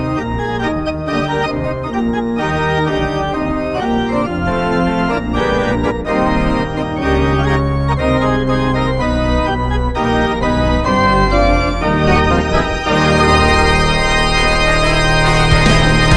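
Organ playing a lively tune, its notes and chords changing in quick steps.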